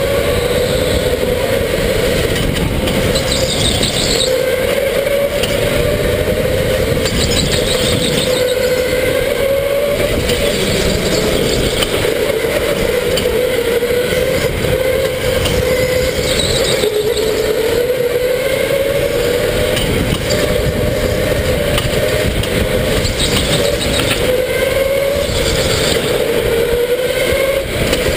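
Indoor electric go-kart at race pace heard from on board: the motor's whine rising and falling with speed through the corners, over a constant rumble of tyres and wind on the camera. Brief high tyre squeals come a few times as the kart slides through turns.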